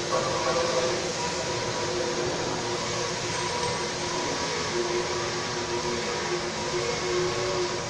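Steady industrial machinery noise with a few faint wavering hum tones running under it.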